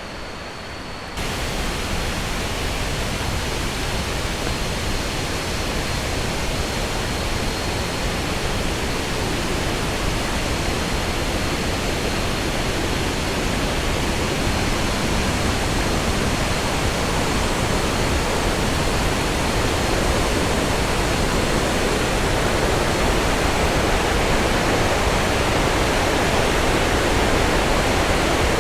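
A waterfall in flood, torrents of water pouring over rock cascades: a steady rushing noise that comes in abruptly about a second in and grows slowly louder.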